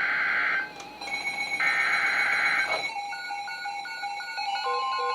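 Emergency Alert System end-of-message data tones over NOAA Weather Radio, heard through a weather radio receiver: two harsh, buzzy digital bursts about a second long each, closing the broadcast warning. From about three seconds in, a softer, evenly repeating beep pattern like music follows.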